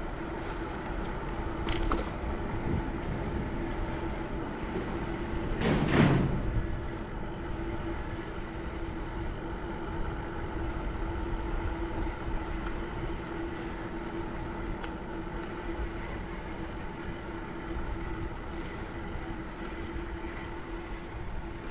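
Bicycle ride noise: wind buffeting the microphone and the rattle of the bike rolling on the campground road, under a steady faint hum. A short click comes about two seconds in, and a louder jolt about six seconds in.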